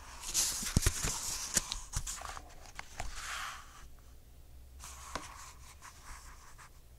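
Paper rustling as the pages of a paperback book are turned and pressed flat, with a few sharp clicks; the rustling is strongest in the first half and comes again briefly later.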